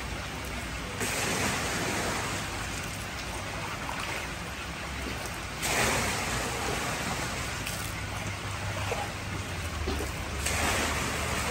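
Water pouring in a wide sheet from a filter return outlet into a koi tank, a steady splashing rush. It swells louder about a second in, again near six seconds and near the end.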